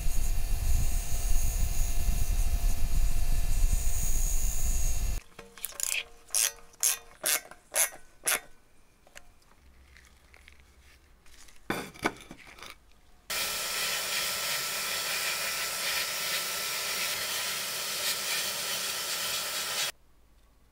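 A power tool running steadily that stops about five seconds in, then about six short, quick strokes and a pause, then a second, higher-pitched power tool running steadily for about six seconds before it cuts off.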